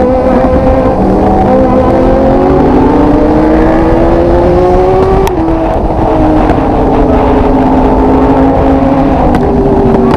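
Motorcycle engine pulling hard, its pitch climbing steadily for about five seconds, then dropping sharply at an upshift and running on at a steadier, slowly easing pitch, over heavy wind rush.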